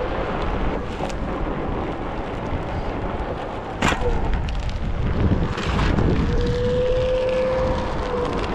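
Onewheel GT-S self-balancing electric board riding over asphalt: a steady rumble of the tyre and wind buffeting the microphone, with the hub motor's thin steady whine at the start and again for the last couple of seconds. A single sharp click about four seconds in.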